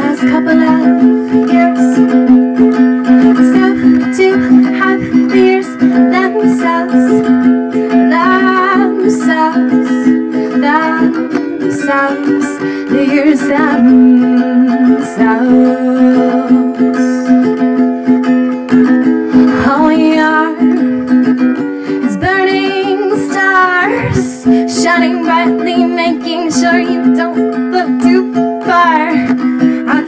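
A woman singing a song, accompanying herself on ukulele.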